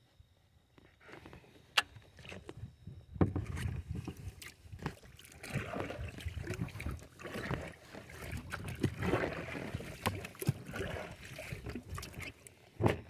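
Gear being handled in a small plastic pedal boat: several sharp knocks and clicks against the hull, with scraping and rustling in between.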